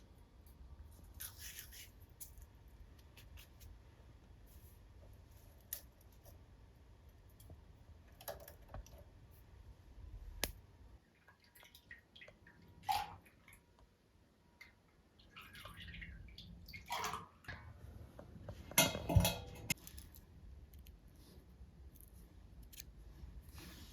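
Scattered small kitchen handling sounds: light clicks and knocks, with a louder bout of rustling and clattering about three-quarters of the way through.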